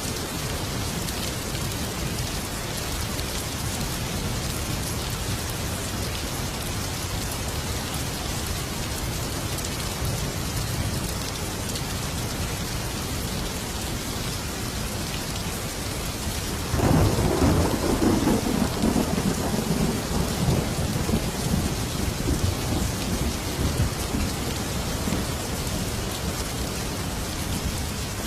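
Steady heavy rain falling, with a sudden thunderclap about two-thirds of the way through that rolls on as a rumble for several seconds before fading back into the rain.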